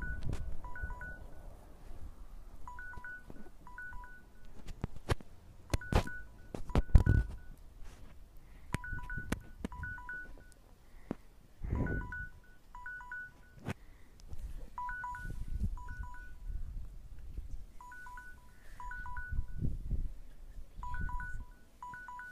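Electronic beeping like a digital alarm or timer: short two-tone beeps in pairs, two pairs about every two to three seconds, repeating steadily throughout. Beneath it, low rumbles and sharp knocks of handling noise, loudest about seven and twelve seconds in.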